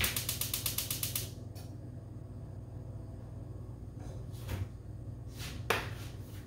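Gas stove burner being lit: the igniter clicks rapidly for about a second, then stops. Near the end come a few knocks as the frying pan is moved on the burner grate.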